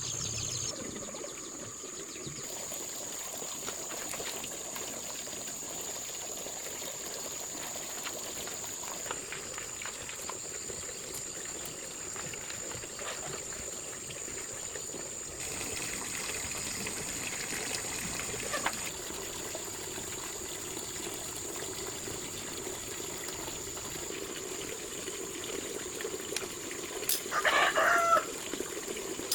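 Steady trickle of running water with a thin, steady high-pitched whine behind it, and a short chicken call near the end.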